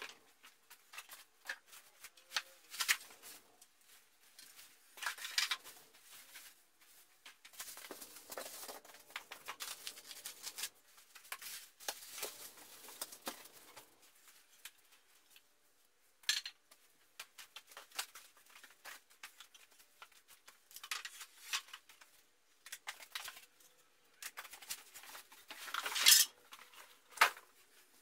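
Wooden bed-frame slats and frame pieces being unpacked by hand: white foam wrapping rustles and is torn away, and the wooden parts knock, clack and scrape as they are lifted and set down, with the loudest clacks near the end.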